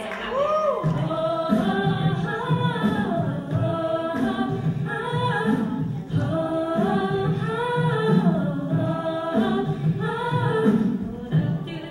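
A mixed-voice a cappella group singing in close harmony: a lead voice over backing vocals and a low, pulsing bass part.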